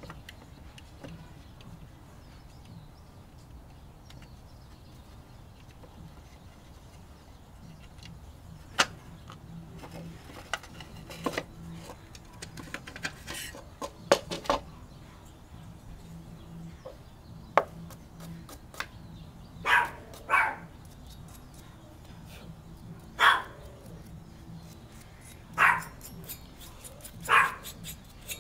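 Sharp clicks and knocks of a desktop computer's plastic fan shroud, retention bracket and aluminium heatsink being handled and pulled apart. In the second half a dog barks five times, in short single barks a second or more apart.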